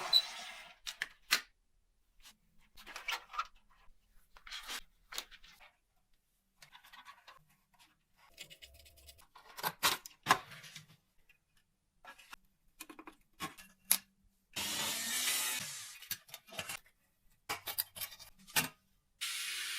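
Parts of a cordless multi-tool being handled and worked on: scattered clicks, scrapes and rustling, broken by an even hiss of about a second and a half about fifteen seconds in and another hiss starting near the end.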